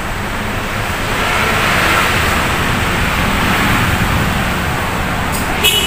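Steady rushing background noise that swells a little about two seconds in, with a few short clicks near the end.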